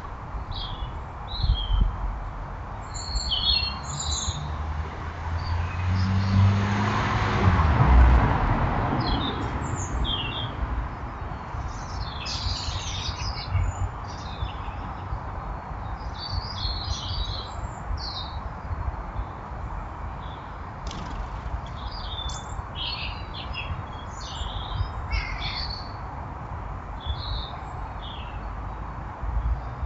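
Small garden birds chirping and calling on and off, in short high chirps. A vehicle passes about six to nine seconds in, swelling and fading.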